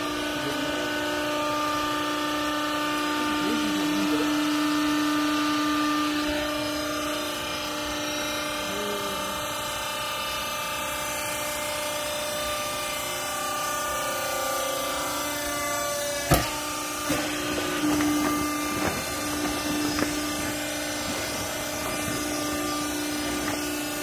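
Vertical hydraulic baler's electric motor and hydraulic pump running with a steady hum, with a sharp clank about two-thirds of the way through followed by a few lighter knocks.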